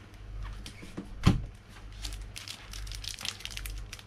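Small handling noises: rustling and crinkling with scattered light clicks, and one sharp knock about a second in.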